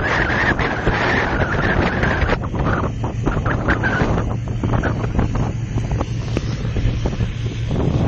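Wind buffeting the phone's microphone in uneven gusts on the open deck of a moving passenger ferry, over a steady low hum from the ferry's engines.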